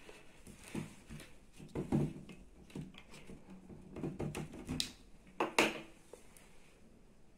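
Scattered light knocks and clatter of kitchen items being handled on a tabletop, a few separate strokes with the loudest about five and a half seconds in.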